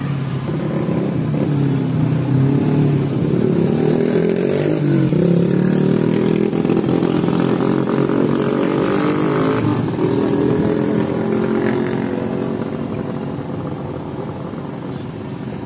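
Diesel engine of a Wirtgen W100H cold milling machine running, its engine speed rising and falling a few times.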